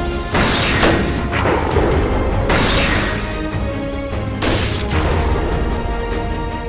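Dramatic music overlaid with added sound effects: several sudden crashing booms, each ringing off, at irregular intervals.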